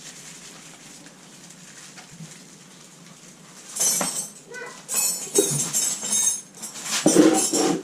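Metal tools and engine parts clinking and clattering in irregular bursts, starting about four seconds in after a stretch of low hiss.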